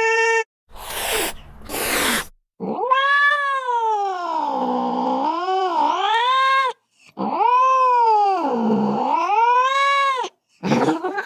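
Domestic cat giving two short hissing sounds, then two long caterwauling yowls whose pitch sinks and rises again, and a short cry near the end.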